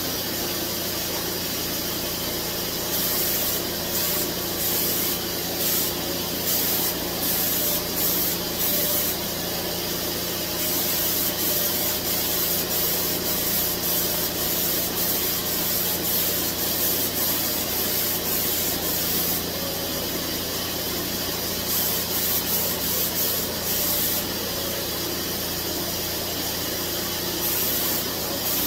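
Fuji Q4 Platinum HVLP turbine running with a steady hum while the spray gun hisses on and off in repeated passes, spraying clear lacquer.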